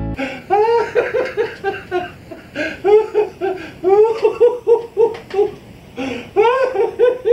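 An elderly man laughing hard, in runs of quick, high-pitched 'ha-ha' syllables with short pauses for breath between them.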